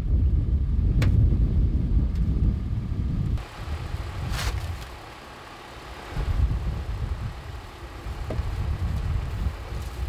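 Wind buffeting the microphone with a low rumble, dropping away suddenly a few seconds in and building again later, while a snow brush sweeps loose snow off a car's hood with a brief swish about halfway through.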